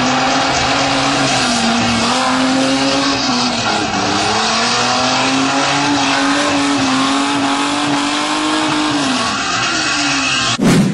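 Car engine held at high revs while drifting, tyres squealing on the pavement; the engine pitch sags and recovers a few times. The sound cuts off suddenly near the end.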